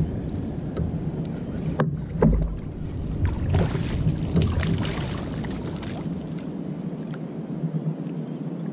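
Small Pacific bonito splashing and thrashing at the surface beside a kayak as it is reeled in, loudest from about three to six seconds in, with a few sharp knocks of rod and tackle against the hull shortly before. Under it, a steady low rumble of water and wind on the microphone.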